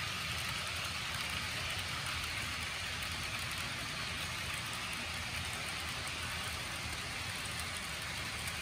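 HO scale model passenger train rolling along the track: a steady hiss of small metal wheels on the rails over a low rumble.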